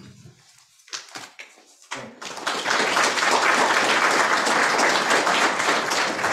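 Audience applauding, rising to full, dense clapping about two seconds in after a few scattered knocks and claps.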